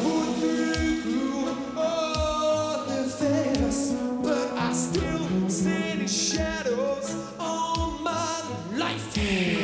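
Live band music with a male lead singer holding long, wavering sung notes over sustained backing, while the drums keep a beat of about one hit a second and a cymbal crashes near the end.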